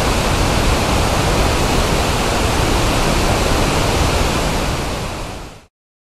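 Otojigataki waterfall's falling water making a steady, dense rush across all pitches, an even 1/f (pink) noise. It fades out and cuts to silence near the end.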